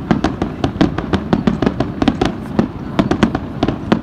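Aerial firework shells bursting in quick succession: a dense string of sharp bangs and cracks, several a second, over a low rumble.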